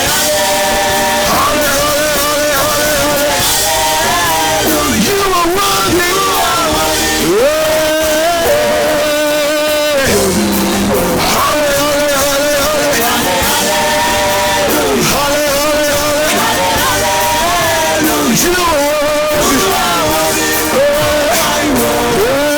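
Live worship band music with loud singing in long, bending notes and no clear words.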